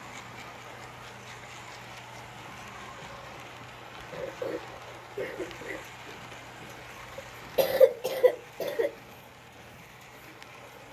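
A person coughs several times in quick succession about three quarters of the way through, after a couple of softer coughs or throat-clearings a few seconds earlier, over a steady low hum.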